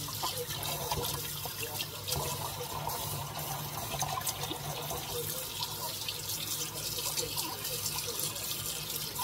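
Kitchen faucet running in a steady stream into a stainless steel sink with shallow water in it, with small splashes as hands rinse a wet puppy.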